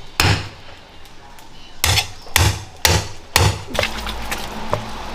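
A heavy meat cleaver chops through pig's trotters, bone and all, on a thick wooden chopping board. There is one chop just after the start, then four more about half a second apart from about two seconds in.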